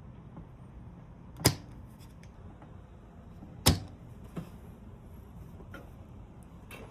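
Two sharp clicks about two seconds apart, with a few faint ticks, from tools being handled while desoldering an ECU circuit board.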